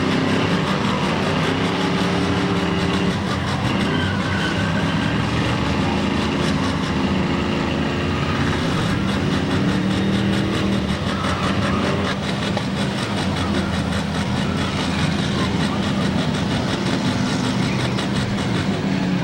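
Many demolition derby cars' engines running together in a loud, steady din, some of them revving up and down.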